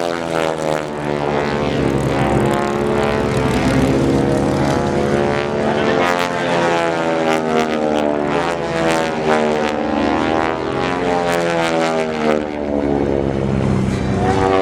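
Several piston-engined propeller warbirds flying past in a formation pass, their engines running together, with the pitch of each rising and falling as the planes go by.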